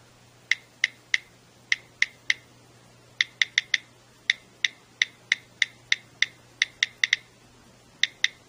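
Key clicks from an iOS on-screen keyboard as a phrase is typed: about two dozen short, sharp ticks at an uneven typing pace, some coming in quick runs.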